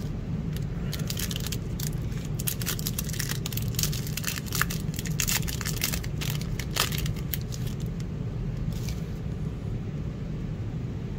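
Foil wrapper of a Fortnite Series 3 trading card pack crinkling and tearing as it is ripped open and the cards slid out: a rapid run of crackles that thins out after about seven seconds. A steady low hum runs underneath.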